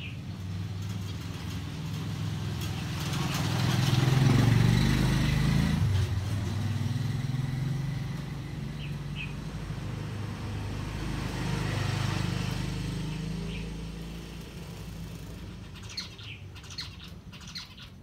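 Two motor vehicles passing by, each a low engine drone that swells and fades, the first peaking about four seconds in and the second about twelve seconds in. Short chirps from caged finches come now and then, with a small flurry near the end.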